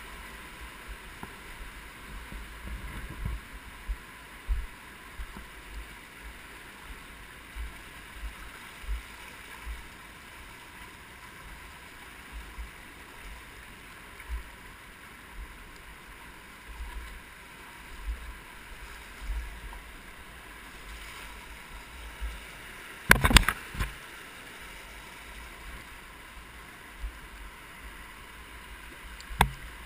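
Mountain river rushing through a narrow rock gorge, heard close to the water, with frequent low bumps and thumps on the microphone. About three-quarters of the way through there is a loud clattering knock, and a smaller click near the end.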